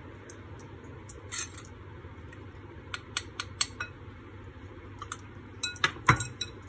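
Hand mixing and pressing mashed potato dough in a glass bowl, with scattered light clicks and clinks of a spoon and bangles against the glass. A small cluster comes about three seconds in, and a denser run near the end, with one louder knock just after six seconds.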